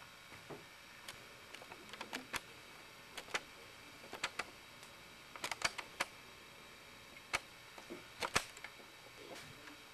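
Camcorder audio of irregular sharp clicks and pops over a steady tape hiss, some single and some in quick clusters, typical of the recording being stopped and started shot by shot for stop-motion.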